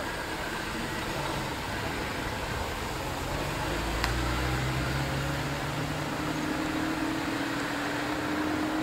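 Mercedes-Benz 300 SL (R107) roadster's straight-six pulling away from a standstill, its note swelling about three and a half seconds in and rising slowly as it drives off, over a steady background hiss. A single sharp click about four seconds in.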